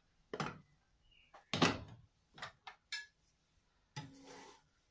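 Glass lid lifted off a frying pan and handled on the stove: a string of sharp clinks and knocks, the loudest about a second and a half in, then a short hiss near the end.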